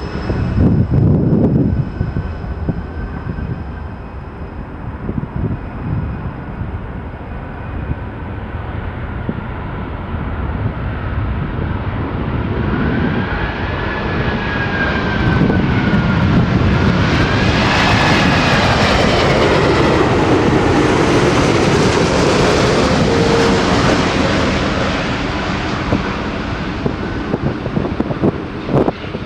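Airbus A380's four jet engines passing close by on landing approach. The steady jet noise swells to its loudest in the middle of the pass and then eases. A high engine whine slides down and back up in pitch as the aircraft goes by.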